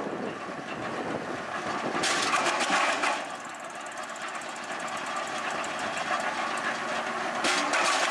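PTO-driven REMET RP-200 drum wood chipper running off a tractor. A spell of loud, rapid crackling about two seconds in and again near the end, as wood is fed in and chipped.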